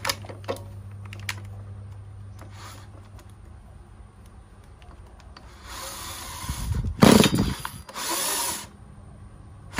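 Small Zenoah two-stroke brushcutter engine, with no muffler fitted, being started: three short, loud bursts as it fires briefly, the middle one the loudest. Before that there is a low steady hum and a few light clicks.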